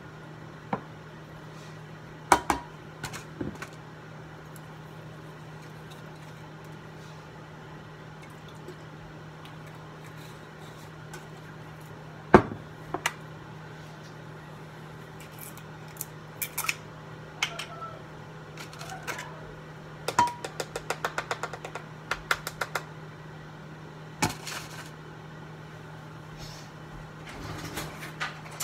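Kitchen utensils and dishes knocking and clinking: a plastic slotted spoon and a serving bowl set down on the counter, three sharp knocks among small clicks, and a quick run of small clicks about twenty seconds in. A steady low hum runs underneath.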